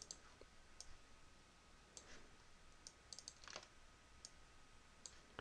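Faint computer mouse clicks, about ten scattered irregularly over a few seconds, against near-silent room tone.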